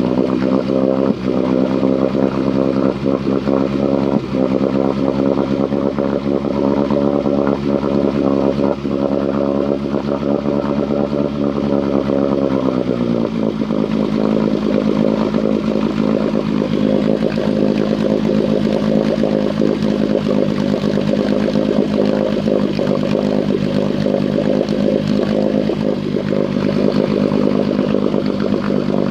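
An engine running at a steady fast idle; about halfway through, its speed drops as the idle is turned down. It runs on at a lower, rougher idle, sputtering and missing.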